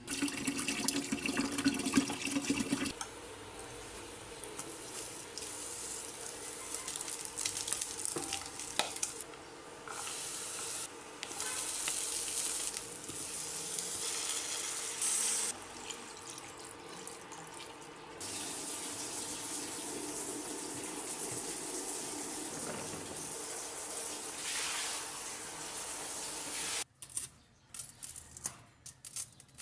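Kitchen sounds of home cooking in a series of short cuts, mostly a steady hiss like running tap water or food in a pan, ending in a few light clicks and knocks.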